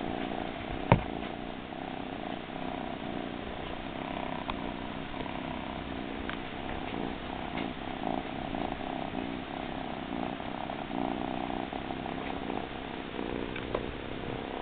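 Tabby kitten purring steadily with an even pulsing rhythm. A single sharp click about a second in, and a few fainter clicks later.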